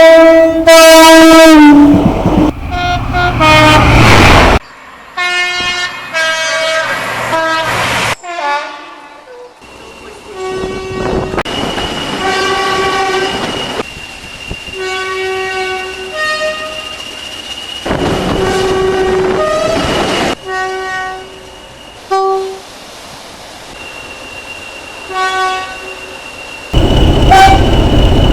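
A run of British train horns, several different trains cut one after another, each sounding loud two-tone blasts that step between a high and a low note. The longer recording in the middle has a string of short repeated two-tone toots over a steady high whine, and a further loud blast comes near the end.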